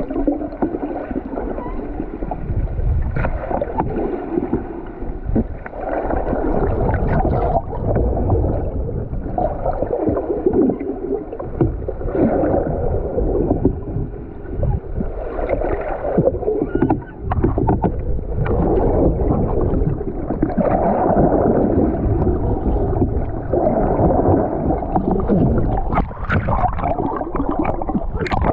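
Water sloshing and churning around a small banca fishing boat at sea, over a steady low rumble, rising and falling in swells.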